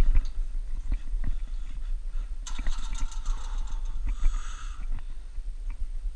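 Wind buffeting a climber's head-mounted action camera microphone as a steady low rumble, with scattered light knocks and a brief hissing rustle about two and a half seconds in.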